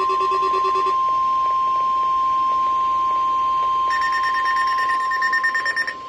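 Weather alert radios sounding their alert for an EAS test: a loud, steady high tone with a pulsing lower beep that stops about a second in, then a second radio's rapid pulsing higher beep joining about four seconds in.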